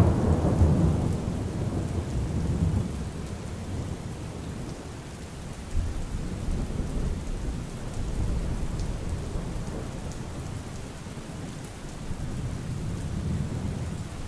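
Steady rain with rolling thunder, the low rumble swelling at the start and again about eight seconds in.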